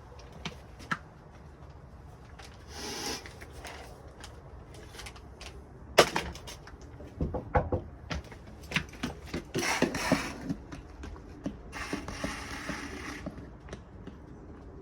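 Irregular knocks and clicks, with a sharp thud about six seconds in and three short bursts of scraping or rustling, like objects being handled and set down.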